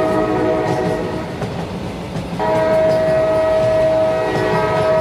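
A train horn sounding a held multi-tone chord over a steady rumble, used as a fan-made giant-creature sound. The horn drops out for about a second midway, then comes back louder and holds.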